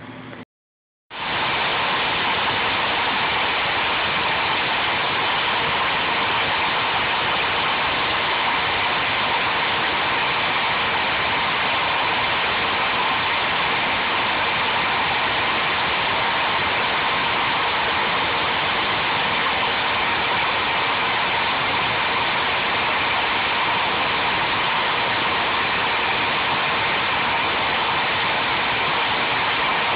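Home-built CNC lathe set-up running steadily while its cutter carves a label into a turned wooden bottle-opener handle: an even, unchanging machine noise that starts abruptly about a second in.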